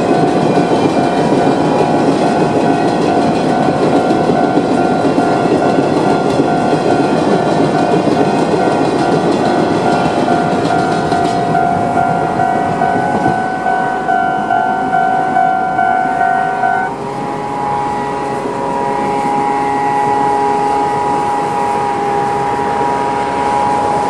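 Railway level-crossing alarm of the older standard electronic type, ringing at a fast tempo while hopper wagons of a freight train rumble and clatter over the rails. The train noise fades around halfway through, and the alarm cuts off suddenly about two-thirds of the way in. A steady tone of a different pitch carries on after that.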